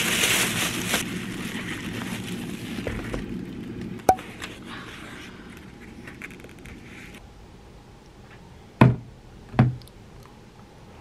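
Thin plastic carry-out bag crinkling as it is pulled open. About four seconds in there is a single sharp click, and near the end two loud thumps less than a second apart.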